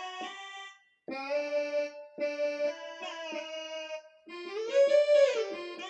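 Yamaha PSR-I455 keyboard playing held notes in a reedy, accordion-like voice. About four seconds in, the pitch bend wheel bends a note up and back down.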